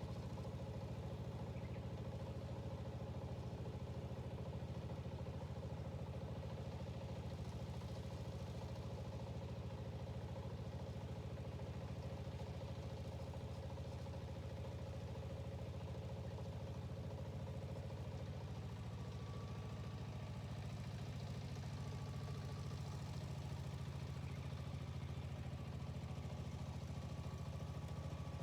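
Yanmar walk-behind tiller's diesel engine running steadily at idle, a fast even pulse that holds the same pace throughout.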